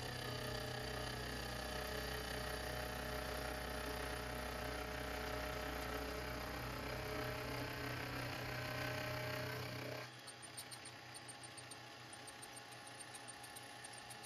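Milling machine running a face mill on a slow, shallow pass across the side of a cast brass plane body: a steady motor hum with the cutter's sound. About ten seconds in the sound drops much quieter.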